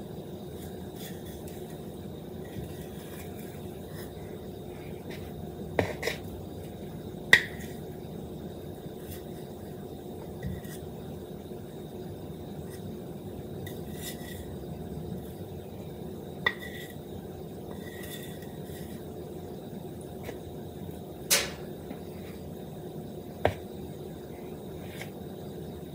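A spoon clinking and scraping against a measuring cup while scooping out sticky peanut butter: about half a dozen sharp, spaced-out clinks over a steady low room hum.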